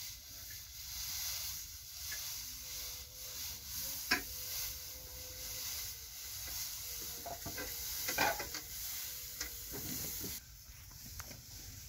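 Dry straw rustling and crackling as armfuls are pulled from a large straw stack, with a sharp crackle about four seconds in and a louder cluster of crackles around eight seconds.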